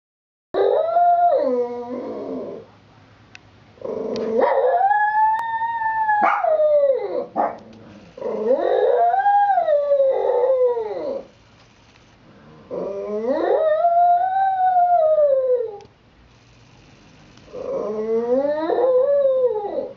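Shih-Tzu howling: five long howls, each a couple of seconds or more, rising and then falling in pitch, with short breaks between them.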